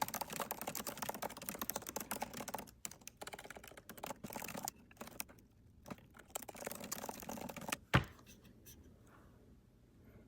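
Rapid typing on a computer keyboard, a quick run of key clicks with short pauses, ending about eight seconds in with one sharper, louder keystroke, after which the keys fall quiet.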